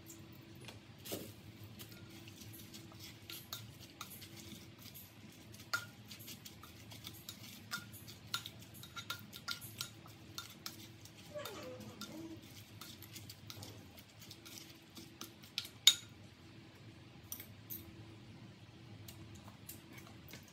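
A spoon stirring and clinking against a pot while wet pickled vegetables are mixed, with scattered sharp clicks and scrapes. The loudest clink comes about 16 seconds in.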